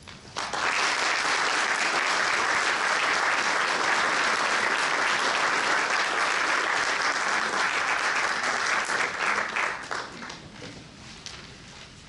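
Audience applauding, breaking out suddenly about half a second in, holding steady, then dying away around ten seconds in to a few last claps.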